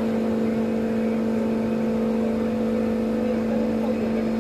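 Heavy construction machinery running with a steady, even drone at a constant pitch.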